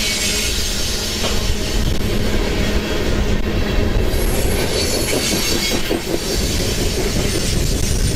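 Coal hopper cars of a freight train rolling past, steel wheels clattering and rumbling on the rails with an occasional faint high wheel squeal.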